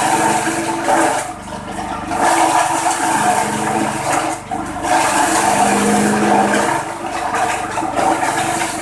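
Petrol-engine forage chopper (6.5 hp engine driving a six-blade cutter with feed rollers) running while green stalks are fed in: a steady engine drone under a loud rushing noise of the stalks being shredded and thrown out. The noise dips briefly about a second and a half in and again just past four seconds.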